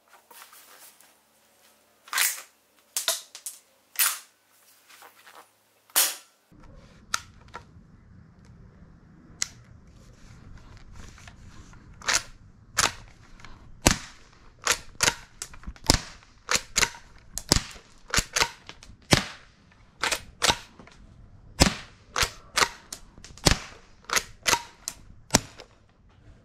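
Lever-action airsoft rifle being cycled and fired over and over: a long run of sharp clacks and pops, about one to two a second, from the lever working the action and the shots. About six seconds in a low steady background rumble comes in under them.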